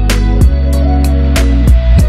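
Background music: a guitar-led instrumental track with steady bass and a regular beat.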